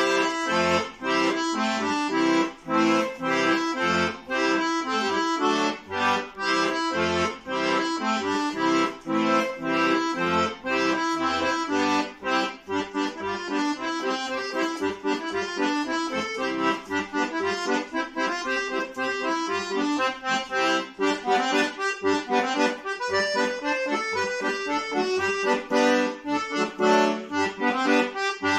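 Solo piano accordion playing a quick melody of short notes on the treble keys, over regularly repeating bass notes and chords from the left-hand buttons.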